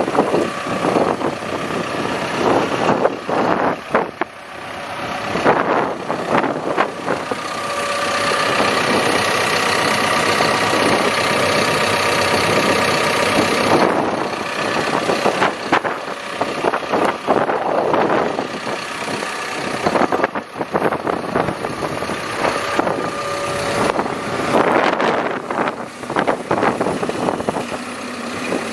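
2014 Cat 420F backhoe loader's diesel engine running, with a steadier, louder stretch carrying a whine from about eight to fourteen seconds in.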